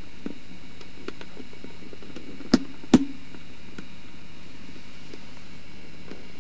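Steady background hiss, with two sharp clicks about half a second apart roughly halfway through and a few fainter ticks around them.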